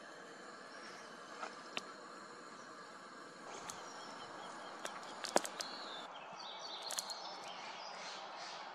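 Gas camp stove burners hissing steadily under a pan of heating water, with scattered sharp clicks and some faint high chirps in the second half.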